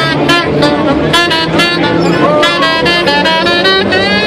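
Swing jazz with a saxophone leading, playing a quick run of short notes and then a longer held note near the end.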